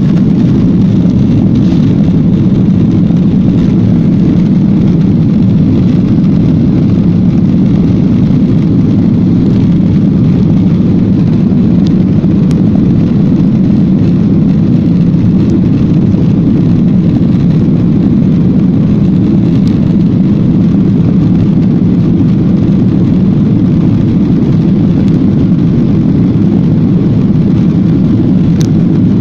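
Jet airliner's engines at takeoff thrust, with the wheels rumbling on the runway, heard from inside the cabin during the takeoff roll: a loud, steady low rumble.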